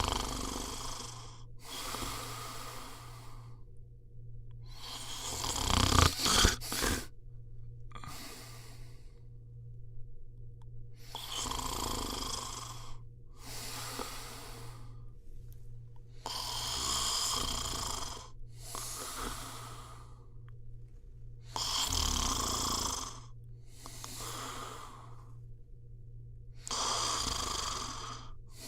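A person snoring in a slow, even rhythm: each breath is a rasping snore followed by a shorter, softer one, about every five to six seconds. The loudest snore, about six seconds in, breaks into a rattling snort.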